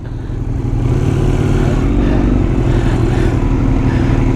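Motorcycle engine running steadily while riding, with wind and road noise over it.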